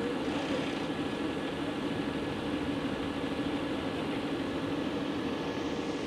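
JCB Fastrac 4220 tractor's 220 hp engine idling steadily, with an even low hum and a faint steady whine above it.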